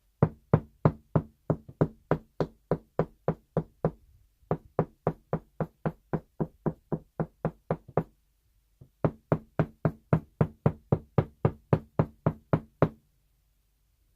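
Knocking by hand on an interior wall: three runs of quick, even knocks, about three to four a second, with short pauses between. The knocks sound out the wall to find where the hollow sound turns solid over a wooden stud behind the board.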